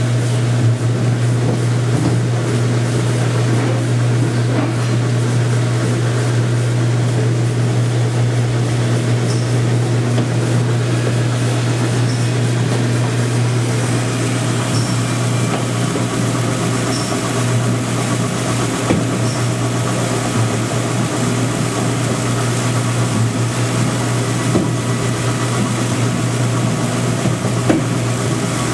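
Oil-water separator rig running, its water-well pump pushing the oil and water mix through with a steady low mechanical hum.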